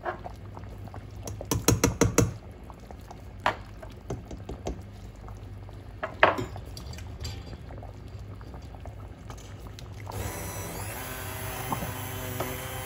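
A wooden spoon stirring a steel pot of simmering vegetable soup, knocking against the pot several times, with a loud cluster of knocks about two seconds in. About ten seconds in, a ProMix hand-held immersion blender starts up and runs steadily in the pot, puréeing the soup.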